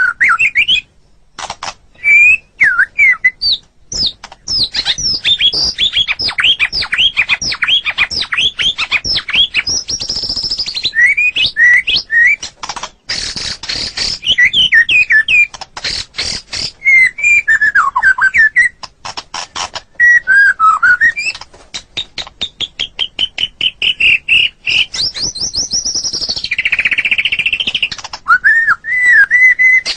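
White-rumped shama (murai batu) singing a long, varied song without pause. It mixes fast runs of sweeping notes, rapid rattling passages and clear whistles.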